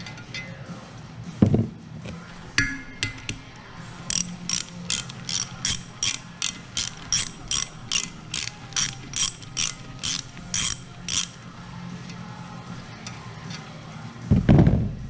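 Hand ratchet wrench clicking through about sixteen even strokes, roughly two a second, with a thump near the start and a heavy knock near the end.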